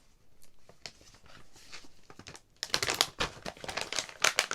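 Crinkly packaging being handled: a few faint clicks, then from a little past halfway a dense run of crinkling and rustling.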